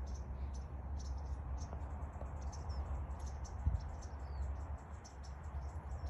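Small birds chirping: many short, high chirps, some gliding in pitch, over a steady low rumble, with a single dull thump about two-thirds of the way through.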